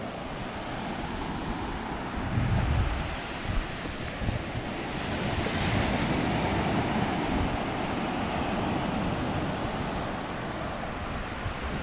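Small surf breaking and washing up a sandy beach, a steady wash that swells around the middle. Wind buffets the microphone with a few low rumbles in the first few seconds.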